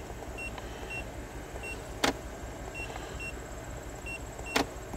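Short high electronic key beeps from a handheld scan tool as its buttons are pressed to scroll a list, about a dozen at uneven spacing, over a steady low hum of the Land Rover LR3's V8 idling. Two sharp clicks, about two seconds in and near the end.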